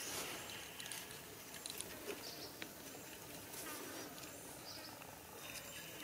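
Faint outdoor background with insects buzzing and a few small scattered clicks.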